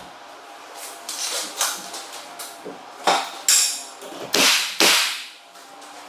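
Pneumatic nail gun firing about six shots in two-shot pairs, each a sharp crack with a short hiss of exhaust air, nailing the shimmed hinge-side door jamb in place.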